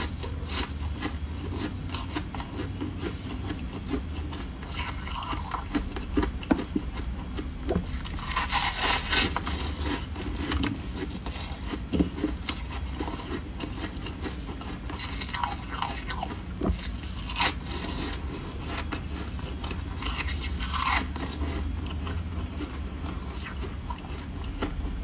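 Close-miked biting and chewing of soft, foamy freezer frost: a steady crackly, scraping crunch with small sharp clicks and several louder bursts of crunching.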